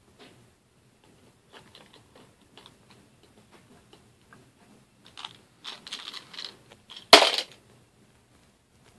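Toy trains being handled, with small plastic clicks and knocks, then a run of louder clattering that ends in one sharp loud clatter about seven seconds in.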